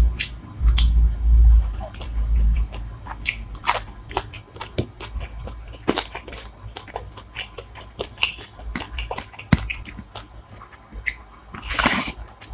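Close-miked eating: chewing and biting with scattered wet clicks and crunches, and a louder crunch near the end.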